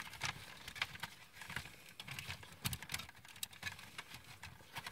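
Faint, irregular clicks and taps of hard plastic parts of a transforming combining robot toy being handled and pushed together.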